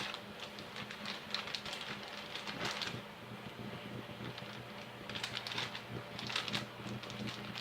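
Sticky homemade slime being pulled and squished off a plastic bag by hand: small, irregular crackles and squelches, over a steady low hum.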